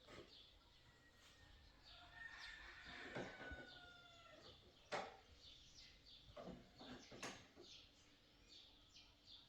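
Faint outdoor ambience with a distant rooster crowing once, about two seconds in, and a couple of sharp knocks later on.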